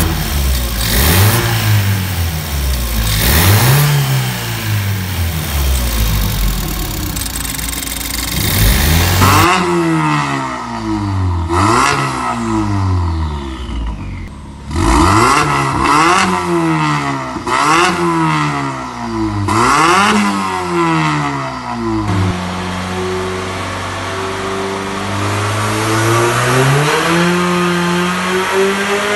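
Ford Fiesta ST180's turbocharged 1.6-litre four-cylinder engine, fitted with a stainless tubular exhaust manifold, being revved in repeated short blips. It then settles to a steady idle, with one slower rise in revs near the end.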